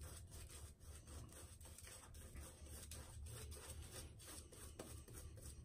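Simpson Chubby 1 super badger shaving brush working lather over the face and neck: faint, quick rubbing strokes of bristles on lathered skin.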